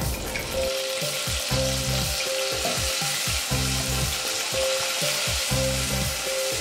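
A song plays, with a bass line and chords changing about every half second, over a continuous crackling hiss.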